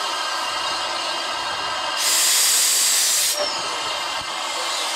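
Steam hissing from an LSWR M7 class 0-4-4 tank locomotive standing at the platform, with a loud blast of steam from the cylinder drain cocks about two seconds in that lasts over a second and cuts off suddenly.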